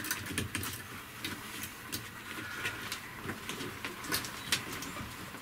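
Irregular light clicks and rustling of gloved hands working the stranded end of a thick copper cable into a terminal on an MPPT solar charge controller.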